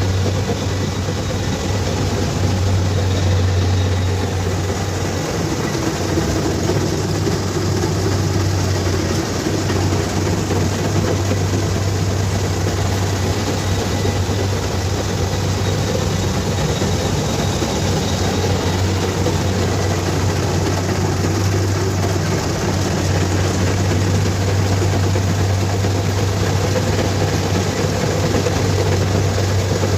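Kubota DC-70 Plus combine harvester running steadily, its diesel engine and harvesting machinery giving a constant low drone.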